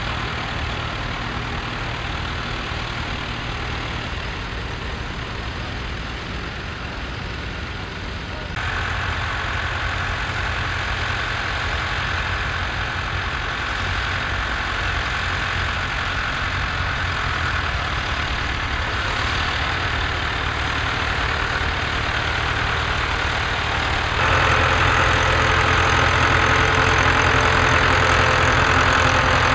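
International 785 tractor's four-cylinder diesel engine running steadily at low revs. The sound steps up abruptly in loudness about a third of the way in and again near the end.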